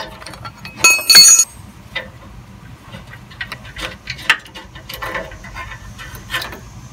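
A steel box-end wrench clanks and rings against metal about a second in as it is worked off the oxygen sensor, then faint scattered clicks and taps as the loosened oxygen sensor is turned out of the exhaust pipe by hand.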